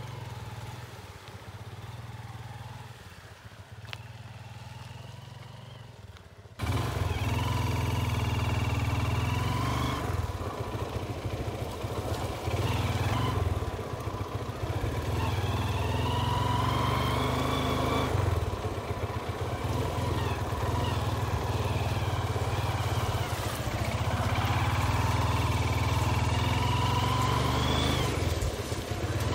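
Hero Karizma R motorcycle's single-cylinder engine running while riding, its pitch rising and falling with the throttle. Quieter at first, it turns suddenly louder about six and a half seconds in.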